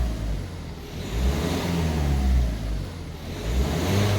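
Ford Focus four-cylinder diesel engine revved and let fall back again in repeated swells about every two seconds. With two new injectors fitted it runs a bit happier, with only a slight roughness left.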